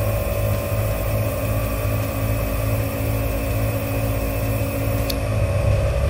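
Air compressor running steadily to inflate a freshly plugged tyre, a constant droning hum, with a brief click about five seconds in.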